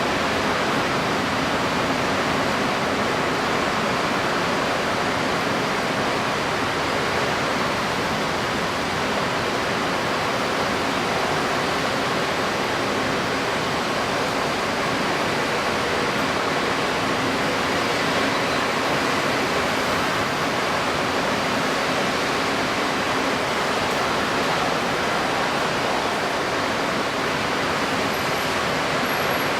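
Steady rushing noise of strong wind and wind-stirred water, unbroken throughout, with a faint low hum underneath.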